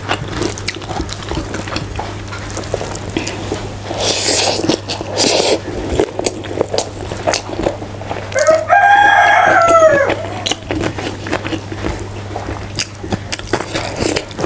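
A rooster crowing once about eight seconds in: one call of under two seconds that rises and then falls. It is heard over the small clicks and squelches of fingers mixing rice on a steel plate and chewing.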